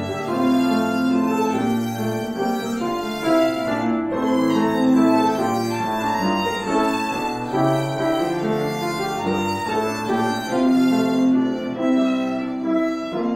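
Piano trio playing: a violin carries the melody in held notes over cello and piano.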